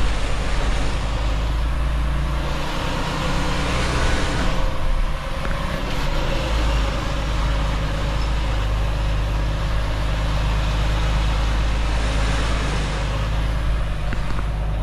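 Semi truck's diesel engine running steadily at low speed, with stretches of hiss coming and going over it.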